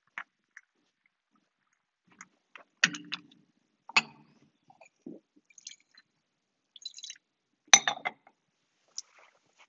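Scattered light clinks and knocks of glass cruets and a dish handled at the credence table, with a little splashing and dripping of water as the priest's hands are washed at the lavabo. The loudest clinks come about three seconds, four seconds and eight seconds in.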